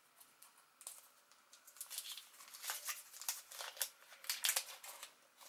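Wrapper of a block of fresh yeast crinkling and tearing in short, faint crackles, which come thicker from about two seconds in.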